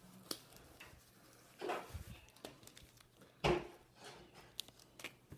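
A few brief rustles and light knocks of handling in a quiet room, with one louder rustle about halfway through and small clicks near the end.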